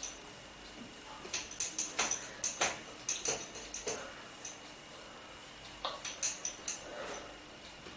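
Whiteboard duster rubbed across a whiteboard in quick strokes, each a short scrape. There are about three and a half seconds of strokes, a pause of about a second, then a few more.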